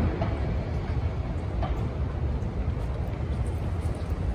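City street ambience: a steady low rumble of traffic with faint scattered higher sounds over it.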